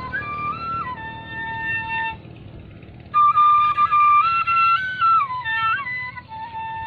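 Vietnamese bamboo flute (sáo) playing a slow melody of held notes that step up and down, with a short break about two seconds in before a louder phrase.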